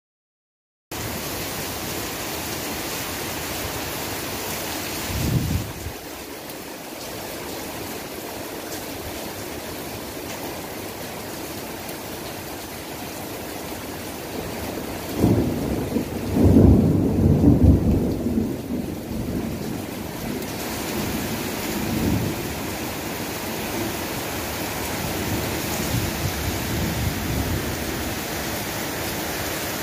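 Heavy rain pouring steadily, with a short rumble of thunder about five seconds in and a longer, louder rumble of thunder from about fifteen to twenty seconds in, then fainter rumbles.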